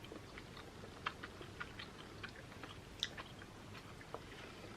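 Faint chewing of chewy caramel candies with Oreo cookie pieces, heard as scattered small mouth clicks and smacks.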